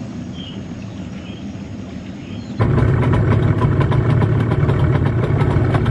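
A small river boat's engine running steadily under way. About two and a half seconds in it turns suddenly much louder, with a strong deep drone.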